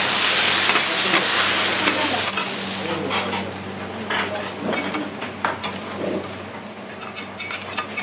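Noodles, cabbage and beef sizzling loudly on a steel teppan griddle as they are tossed with metal spatulas. The sizzle fades after about two and a half seconds, leaving the scrape and clink of the spatulas on the iron plate as the food is scooped up.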